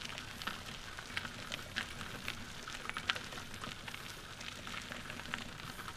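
Trike tyres rolling over a gravel-and-dirt trail, giving an irregular crackle of small stones and grit popping under the wheels over a steady hiss.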